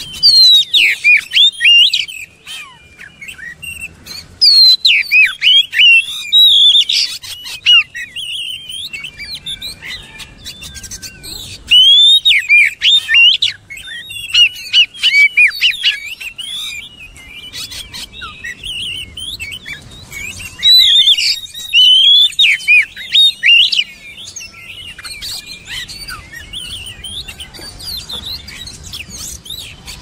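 Oriental magpie-robin singing a varied song of rapid rising and falling notes. It comes in loud bursts at the start, about five seconds in, about twelve seconds in and about twenty-one seconds in, with quieter chattering notes between them.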